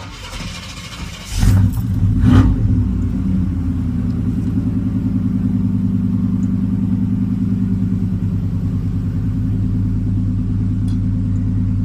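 Pickup truck engine being started: the starter cranks it for about a second and a half before it catches, it revs briefly, then it settles into a steady idle.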